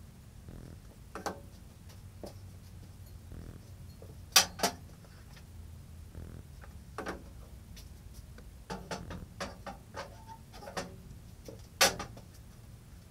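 Scattered clicks and light knocks of hands handling table saw parts and tools during assembly, with two sharp clicks about four seconds in and another near the end, over a low steady hum.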